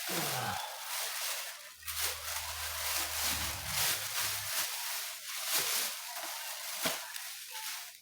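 Rustling and scraping of the cardboard box and packing around a TV with a shattered screen as it is handled, with a few sharp knocks near the end.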